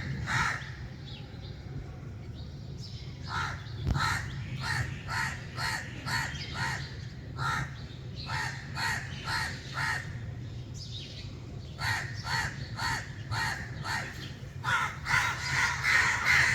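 A flock of crows cawing: runs of quick, repeated caws from several birds, with brief lulls, louder and more overlapping near the end, over a steady low hum.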